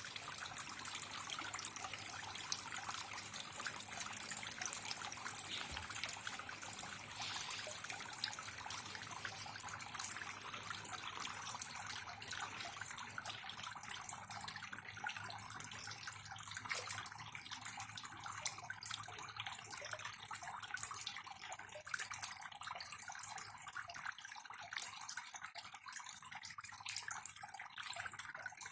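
Faint trickling, dripping water: a steady hiss full of small ticks and pops, easing off somewhat in the second half.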